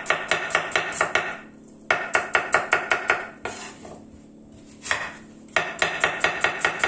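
Kitchen knife chopping onion on a wooden cutting board, in quick runs of about five strokes a second, with pauses between runs while the onion is repositioned.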